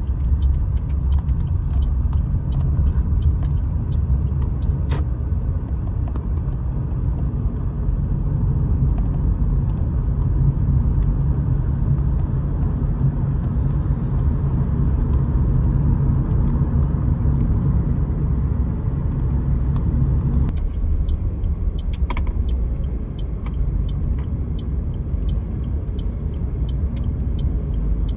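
A car driving: a steady low rumble of engine and road noise that eases off somewhat about twenty seconds in.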